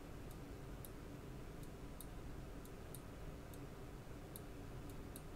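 Computer mouse clicking, about ten faint sharp clicks at irregular intervals as a map view is panned and zoomed, over a steady low background hum.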